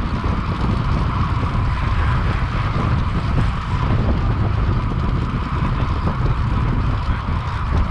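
Wind buffeting the microphone: a steady, flickering low rumble with a constant hiss above it.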